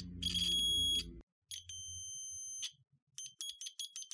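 Digital multimeter's continuity beeper sounding as the probe tips touch circuit-board contacts: two long beeps, then a run of short, broken beeps as the contact makes and breaks. Each beep signals a connected path between the probed points.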